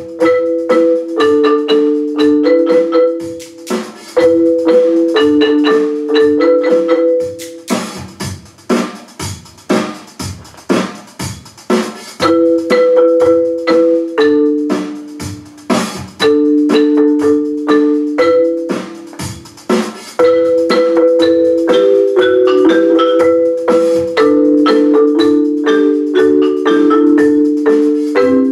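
Marimba ensemble playing: sustained rolled chords in the middle register that shift in pitch, broken about eight seconds in by a few seconds of separate sharp mallet strikes, then rolled chords again to a steady close.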